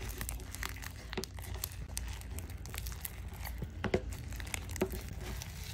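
Sticky fluffy slime of clear glue, shaving foam and activator being stretched and folded in a bowl, giving irregular small crackles and pops as it pulls apart; the slime is just coming together after extra activator.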